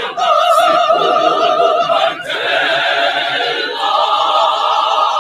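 School choir singing long held chords in full voice, with a short break about two seconds in and a new chord taken up about four seconds in.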